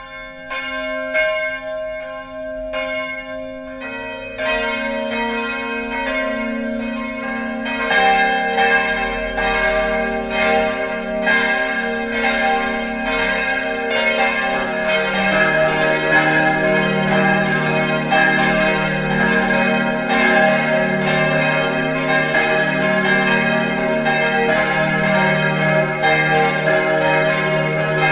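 The full peal of a four-bell church tower, tuned E♭, G, B♭, C (es¹ g¹ b¹ c²), ringing up: one bell starts striking, and the others join one after another over the first fifteen seconds or so until all four swing together. The bells sound modern rather than old; the recordist takes them, with fair confidence, for Kurtz bells cast in Stuttgart.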